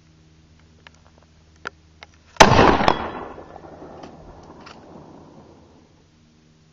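A single shot from a Nemesis Arms Vanquish .308 sniper rifle, a sharp crack followed by a long rolling echo that dies away over about three seconds. A few faint clicks come before it, and a fainter crack about half a second after it.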